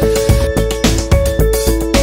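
Background music with a steady fast beat and a short repeating melody.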